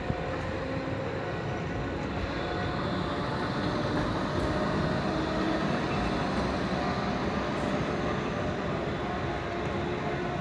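City tram passing close by: a steady rail rumble with faint whining tones from wheels and motor.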